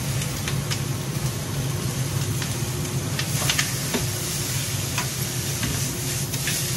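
Sliced beef sizzling as it is tipped into a hot frying pan of onions and stirred, with the spatula clicking and scraping against the pan. The sizzle grows louder about halfway through, over a steady low hum.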